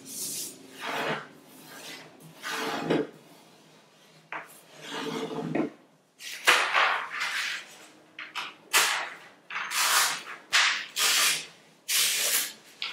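Sheets of paper being folded by hand, sliding and rubbing across a tabletop as creases are pressed, in a series of irregular short strokes that come closer together in the second half.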